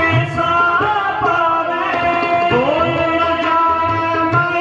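Sikh kirtan: singers performing a shabad to two harmoniums and tabla. The harmoniums hold steady chords, a voice slides up and down the melody, and the tabla keeps a repeated rhythm of low strokes.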